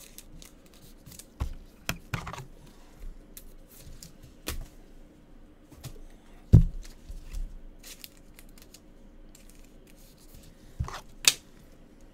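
Trading cards and pack wrappers being handled: scattered crinkles, taps and clicks as a pack is torn open and cards are shuffled. There is a sharper knock about six and a half seconds in and a loud snap near the end.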